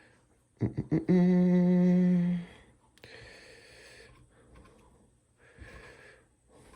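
A man hums one flat, steady note for about a second and a half, just after a few short clicks. Fainter, soft noise follows later.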